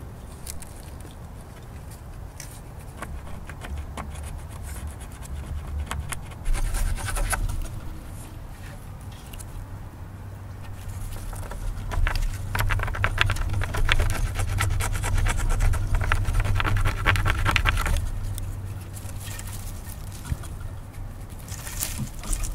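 Twisted fibre rope being wrapped and pulled tight around a charred wooden pole, rasping and crackling against the flaky bark. The scraping comes in short bouts and is thickest and loudest in a long stretch past the middle.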